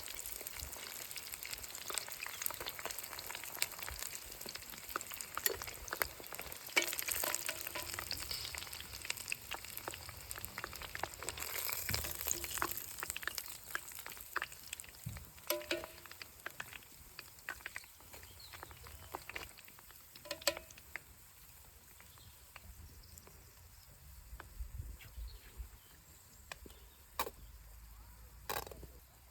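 Chip-coated chicken drumsticks deep-frying in oil, a steady sizzle full of small crackles and pops. The sizzle fades noticeably about halfway through, leaving scattered crackles and a few sharp clicks near the end.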